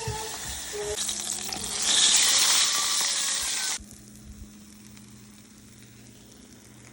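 Battered oyster mushrooms deep-frying in hot canola oil, a steady hiss of sizzling. It grows loud, then drops abruptly to a quieter sizzle about four seconds in.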